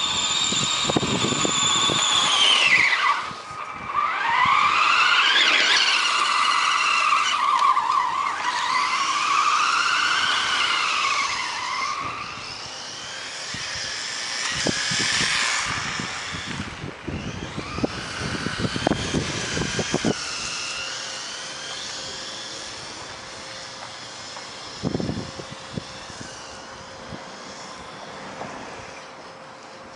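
Electric motor of a radio-controlled car whining, its pitch rising and falling again and again as it speeds up and slows down, with bursts of hiss from tyres on wet pavement. The sound is quieter in the second half.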